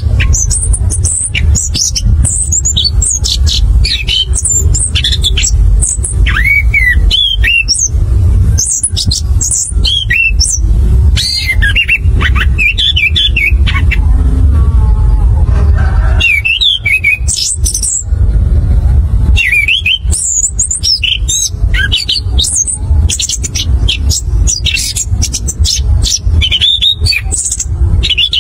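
Caged chestnut-capped thrush (anis kembang) singing its rolling song: fast runs of high, varied whistles and chattering notes in phrases a few seconds long, with a break about halfway through. A steady low rumble runs underneath.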